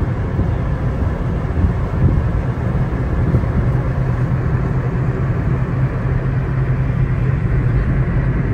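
Steady road noise inside a moving car's cabin: tyre and engine rumble, with a low steady hum that becomes stronger about halfway through.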